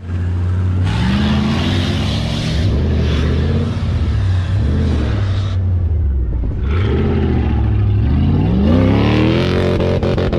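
An off-road vehicle's engine revving hard under throttle: its pitch climbs about a second in, falls away around the middle, then climbs again near the end.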